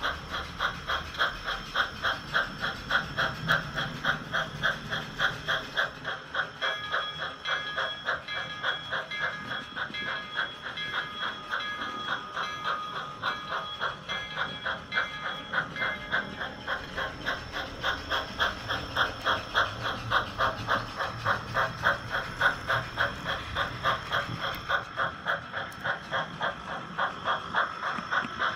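Model steam locomotive chuffing at a steady pace, about three beats a second. A steady high tone sounds over the chuffs for about ten seconds in the middle.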